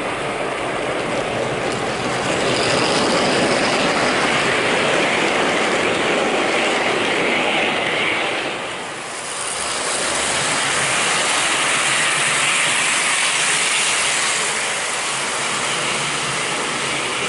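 American Flyer S gauge model passenger train running on its track: a steady mechanical rattle of the motor and wheels on the rails, dipping briefly about halfway through before rising again.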